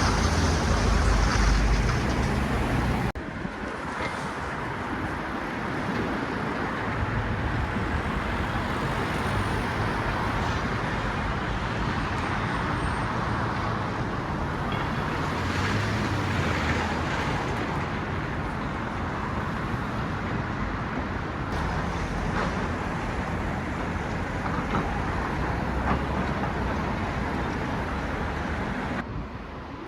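A motor vehicle's engine running close by, then after an abrupt cut about three seconds in, steady road traffic noise.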